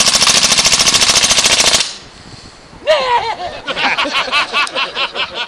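Submachine gun firing one fully automatic burst of about two seconds, rapid shots run together. About a second after it stops, a man laughs loudly in quick repeated bursts.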